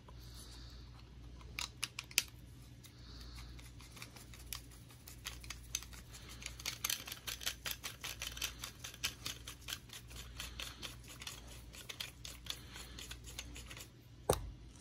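Small phone clamp's adjustment knob being turned by hand, the jaw moving along its threaded rod with small plastic-and-metal clicks. A few clicks come at first, then a fast run of ticks for several seconds, and one sharp click near the end.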